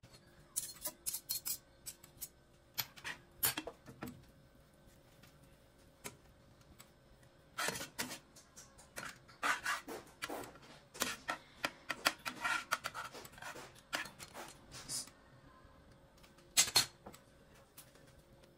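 A metal slotted turner scraping and tapping against a nonstick frying pan while spreading melting butter: irregular clusters of short clicks and scrapes, busiest in the middle, with a last pair of clicks near the end.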